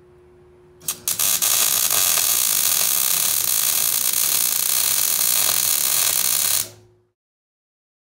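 MIG welding arc on steel plate: two brief catches of the arc about a second in, then a steady, loud crackling hiss for about five and a half seconds that cuts off suddenly.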